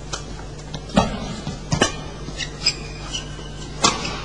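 Badminton racket strikes on a shuttlecock during a rally: several sharp cracks at uneven intervals, the loudest about a second in, just before two seconds and near four seconds, with a few short high squeaks of court shoes between them.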